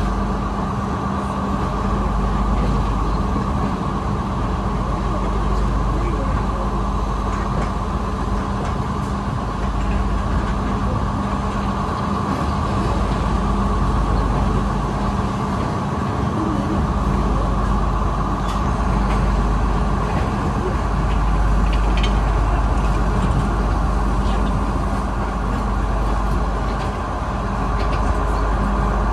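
Passenger train running on the rails, heard from inside the carriage: a steady rumble with a constant hum and scattered clicks and rattles from the wheels and coach.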